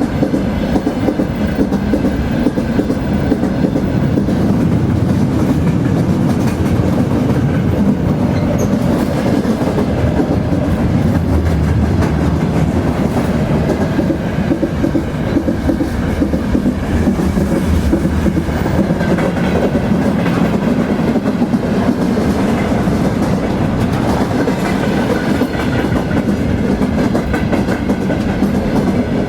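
A train rolling steadily down the track: a continuous heavy rumble with a dense clatter of wheels over the rails.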